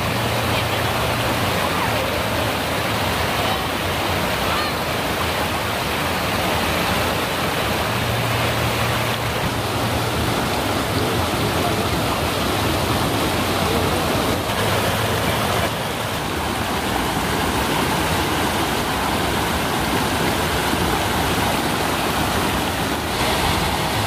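Waterfall and stream water rushing steadily, a constant wash of falling and flowing water.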